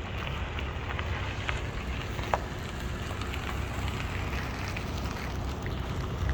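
Wind buffeting the microphone as a steady low rumble, with scattered light ticks and clicks, one sharper click about two seconds in.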